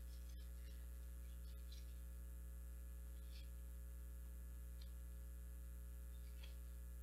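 Faint, steady electrical mains hum from the recording chain, a low buzz with a few very faint ticks over it.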